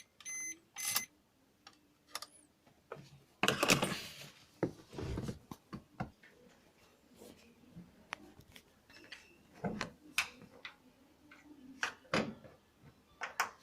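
Scattered light clicks and knocks of something being handled, with a short louder rustling burst about three and a half seconds in.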